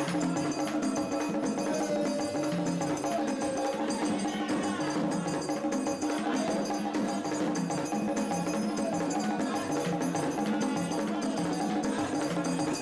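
Haitian Vodou ceremonial drumming: a steady, driving percussion rhythm with a bright clicking beat over the drums, accompanying the dance.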